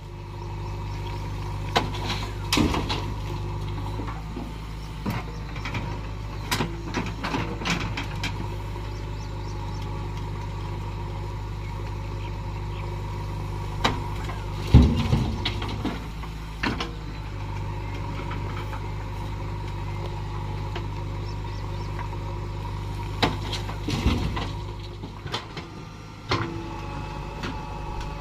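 JCB 3DX backhoe loader's diesel engine running steadily while it works, with repeated metallic clanks and knocks from the bucket and arm, and a heavy thud about halfway through.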